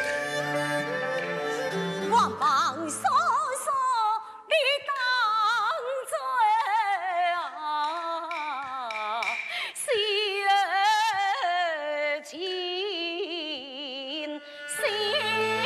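Taiwanese opera (gezaixi) aria: a woman sings a slow, high melody with wide, wavering vibrato over traditional instrumental accompaniment. The voice comes in about two seconds in, and the instruments play on alone near the end.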